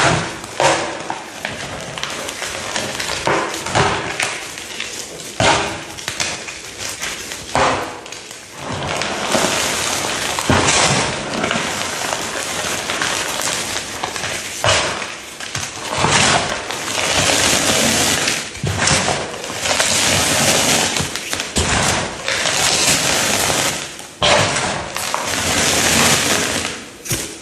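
A crunchy, brittle material being pressed and crushed by hand: loud, continuous crackling and popping with frequent sharp snaps.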